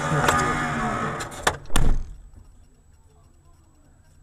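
Clattering and wavering pitched sounds, then two loud thumps about a second and a half in. After that only a faint hum with a thin high tone.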